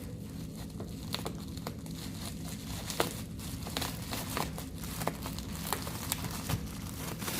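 Packaging crinkling and rustling as a gift box is unpacked, with scattered irregular clicks and crackles.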